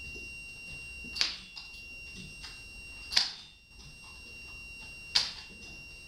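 A belt's loose non-buckle end whipped against the seat of a man's trousers, landing as a sharp slap three times, about two seconds apart. A faint steady high electronic tone runs underneath.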